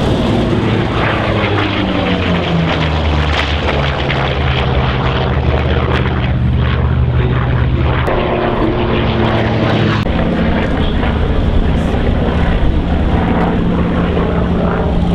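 Vought F4U Corsair's Pratt & Whitney R-2800 radial engine and propeller running at display power in a low flying pass. The engine note drops in pitch over the first few seconds as it passes, then holds steady and shifts again partway through.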